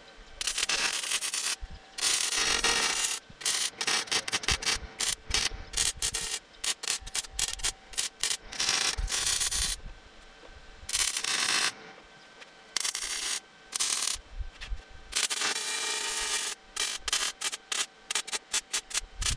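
MIG welder arc crackling in stop-start bursts: several runs of one to two seconds, with many short stuttering blips between them.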